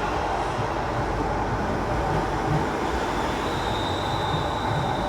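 East Midlands Railway Class 360 electric multiple unit departing, with a steady running rumble and a thin high tone coming in a little over three seconds in.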